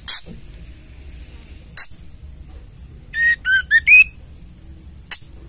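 White-rumped shama calling: short harsh rasping chatter calls, a pair at the start, one just under two seconds in and one near the end. About three seconds in comes a quick phrase of four clear whistled notes, the last rising and loudest.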